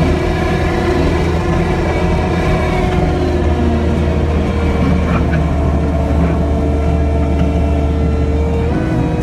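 Kubota SVL75-2 compact track loader's diesel engine running steadily as the machine drives. The engine note shifts briefly near the end.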